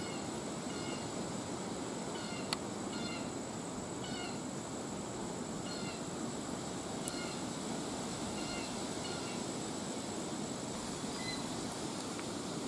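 Quiet woodland sound with short mewing animal calls, repeated every second or so, over a steady high hum. One sharp click comes about two and a half seconds in.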